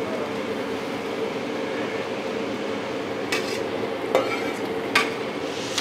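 Steady hiss of a large wok cooking on the stove, with four sharp metal clinks and scrapes from about three seconds in as a spoon scrapes thick sauce out of a metal pot.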